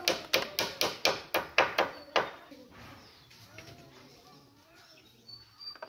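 A quick run of about ten sharp taps or knocks, about four a second, stopping after about two seconds; then a faint low hum.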